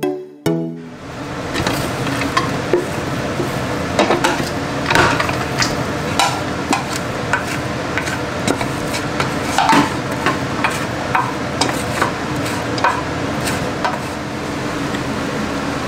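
Food cooking in a pot while being stirred: a steady sizzling hiss, with a spoon knocking and scraping against the pot at irregular moments.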